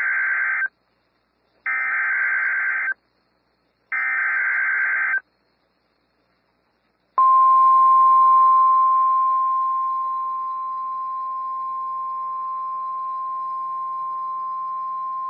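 Emergency Alert System SAME header: three short bursts of screeching digital data tones about a second apart. About two seconds later comes the single steady National Weather Service warning alarm tone, loud at first and easing slightly after about three seconds.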